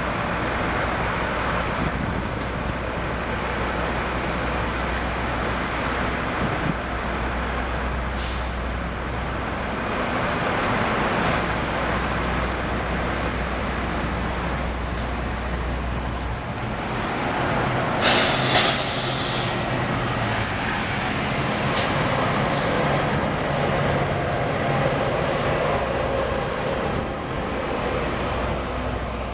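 AMT commuter train running, a steady rumble with a low hum that drops away about 16 seconds in, and a brief loud hiss about 18 seconds in.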